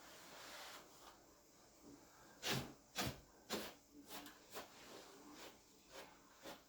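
A few short, sharp knocks and scrapes over a quiet background. The three loudest come in quick succession about two and a half to three and a half seconds in, followed by several fainter ones.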